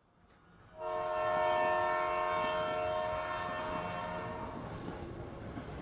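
Train horn sounding one long steady blast about a second in, over the rumble of a passing train. The horn stops after about three and a half seconds while the rumble fades away.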